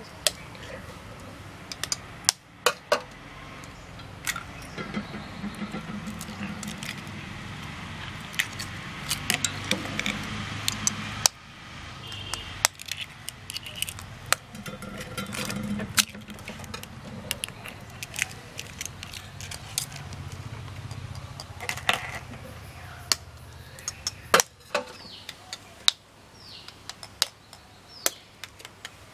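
Hen's eggs being cracked one after another by tapping them with a knife, many sharp clicks and clinks of knife on shell and against a steel pot, over a low background murmur.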